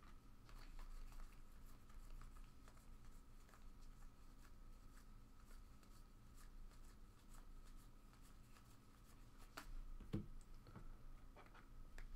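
Faint handling of trading cards: soft scattered clicks and slides as the cards of a freshly opened pack are flipped through, over a steady faint electrical hum. A brief low sound comes about ten seconds in.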